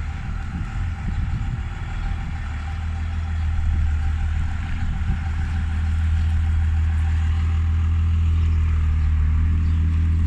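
A motor vehicle's engine running steadily with a deep, even hum that grows a little louder partway through.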